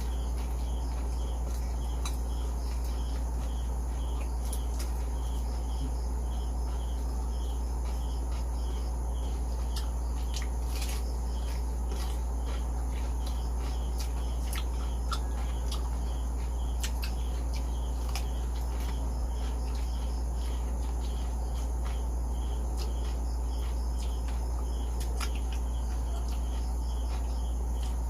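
Steady low hum with a faint high chirp repeating about twice a second, and scattered sharp crunches of crispy fried pork skin being chewed.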